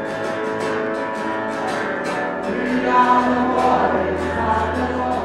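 Worship music: a choir singing with instrumental backing and a steady beat.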